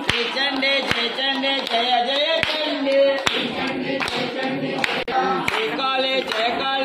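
A group of devotees singing a devotional song together, with hand claps keeping time about once a second.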